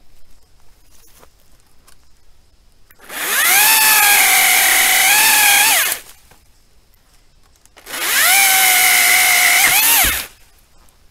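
Makita XAU02PTB 36V cordless pole saw cutting through tree limbs in two bursts of about three seconds each: the electric motor's whine and chain spin up, dip slightly in pitch as the chain bites the wood, rise again as the cut breaks through, and stop.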